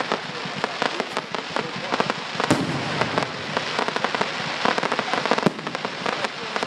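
Fireworks going off: a dense, continuous crackling and popping, with louder bangs about two and a half seconds in and again near five and a half seconds.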